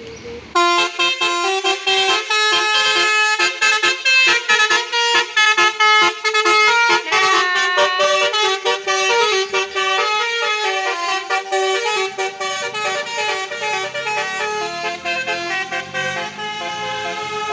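Tourist bus's 'telolet' Basuri musical air horn playing a fast tune of many short, stepping horn notes, starting about half a second in.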